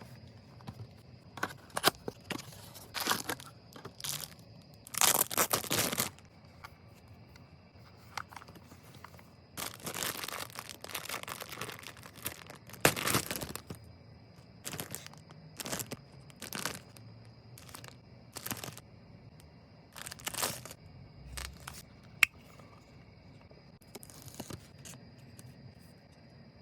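Packaging being torn open and handled: irregular bursts of tearing and rustling, some drawn out over a second or more, with a couple of sharp clicks.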